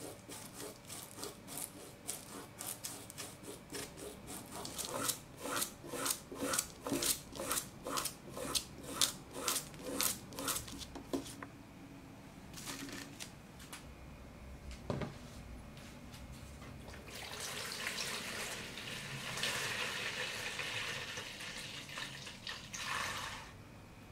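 Small wire brush scrubbing heavy rust off a broken steel hammer head in quick scraping strokes, about two a second, which stop about halfway through. Later come a single knock and then several seconds of a steady rush like water running.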